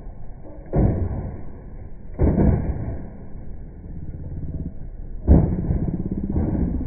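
Three heavy crashing thuds, the first about a second in and the last near the end, as a metal object is struck and tumbles across gravel. A rumbling engine runs between the hits.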